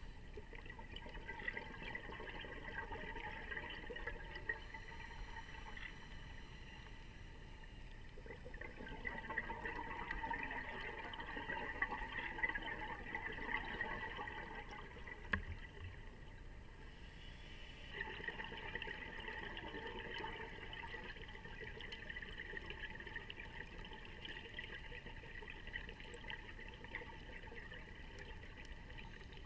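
Muffled underwater bubbling and hiss of scuba breathing, heard through the action camera's waterproof housing. It swells and fades in long stretches, loudest about a third of the way through, with a short dip a little past the middle.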